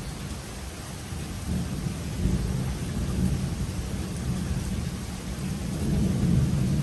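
Thunder rumbling over steady rain. The low rumble swells about a second and a half in and peaks again near the end.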